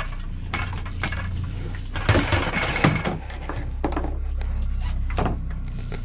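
Boat engine running with a steady low hum, and a burst of noisy clatter with sharp knocks about two to three seconds in.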